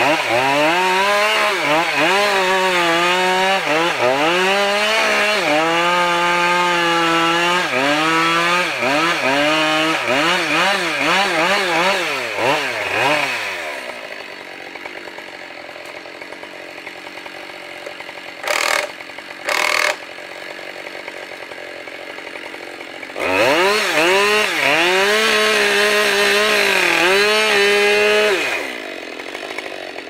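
Chainsaw cutting into a Sitka spruce trunk at full throttle, its pitch sagging and recovering as the chain bogs in the cut. About thirteen seconds in the throttle is let off and the pitch falls away, with two brief noises during the lull. The saw then cuts again at full throttle for about five seconds before the pitch falls away near the end.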